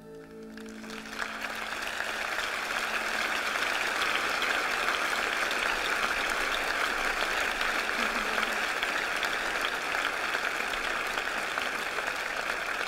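The song's last notes die away, and about a second in a large audience breaks into steady applause that goes on at full strength.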